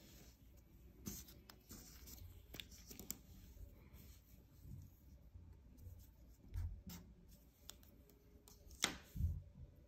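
Faint handling noises: a felt-tip marker writing on paper and paper rustling, with scattered small clicks and soft knocks. A sharper click comes near the end.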